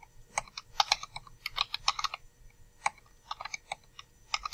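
Computer keyboard keys tapped in quick bursts of several strokes with short pauses between them, numbers being keyed into a calculator.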